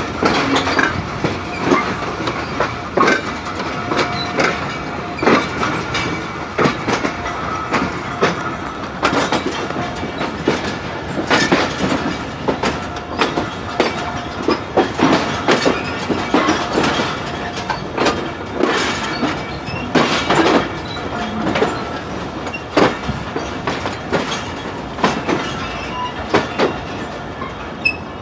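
Passenger train wheels rolling slowly over rail joints and switch points, giving a steady rumble with irregular clanks and clicks, and a faint wheel squeal now and then.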